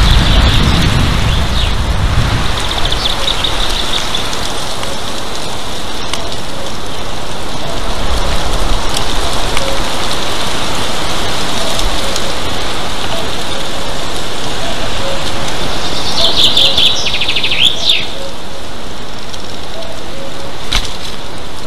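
Steady hiss of rain on an outdoor nest-camera microphone, with bird calls over it: a short chirping phrase a few seconds in, and a quick run of high notes ending in a downward slide near the end.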